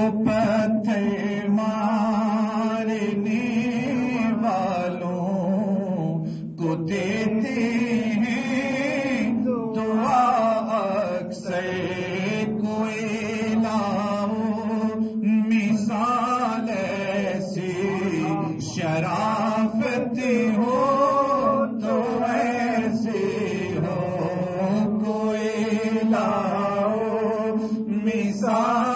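A man chanting a naat, the Urdu devotional poem in praise of the Prophet, solo, in long drawn-out phrases whose pitch bends and is held, with short breaks for breath.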